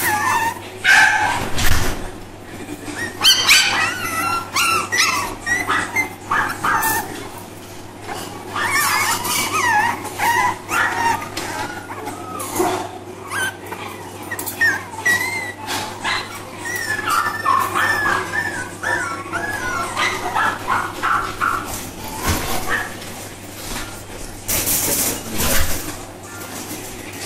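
West Highland White Terrier puppies yipping and whining in short, wavering, high-pitched calls as they play together, with scattered small clicks and knocks.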